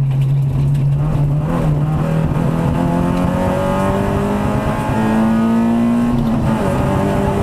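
Rally car engine at high revs, heard from inside the cockpit. Its pitch climbs steadily for a few seconds as the car accelerates down a straight, then drops sharply at an upshift near the end and carries on pulling.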